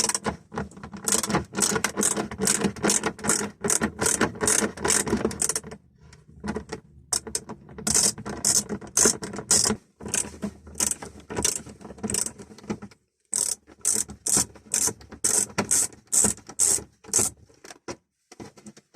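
Ratcheting driver clicking as Torx screws are undone from the dash trim, in runs of about two to three clicks a second with short pauses between them.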